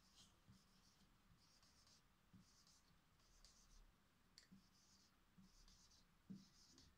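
Red felt-tip marker writing on a whiteboard: a string of faint, short scratchy strokes, with a light tap of the tip about four and a half seconds in.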